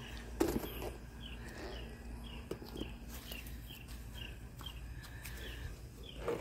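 A small bird chirping faintly and repeatedly, a steady run of short high notes a few times a second, with a few soft knocks of handling underneath.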